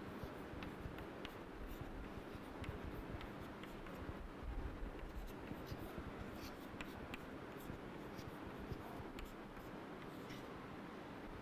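Chalk writing on a chalkboard: a scattered run of faint, short ticks and scratches as strokes are drawn, over a steady room hiss.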